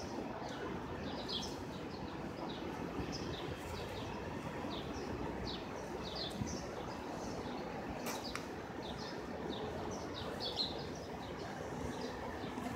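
Small birds chirping again and again, short quick chirps over a steady hum of street noise, with one sharp click about eight seconds in.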